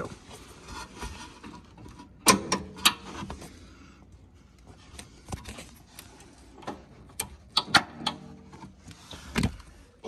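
Spring-loaded quick-disconnect sway bar links being unclipped by hand: a series of sharp clicks and clacks as the collar is pulled and the link end pops off its stud, with rustling handling between them.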